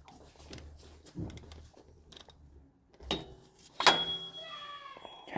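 Soft knocks and handling noise as an oil filter housing is unscrewed by hand, with one sharp metallic clink about four seconds in.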